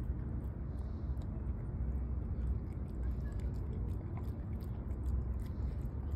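A dog eating from a plastic tray, chewing with many irregular short clicks, over a steady low rumble.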